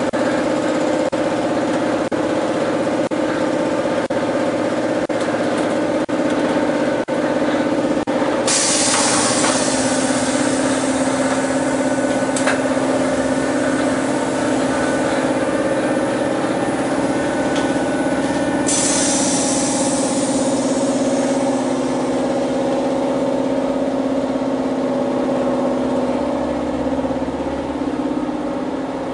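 Sheet-metal duct production line machinery running with a steady hum and scattered light clicks. About eight seconds in a loud hiss starts, and it stops abruptly about ten seconds later.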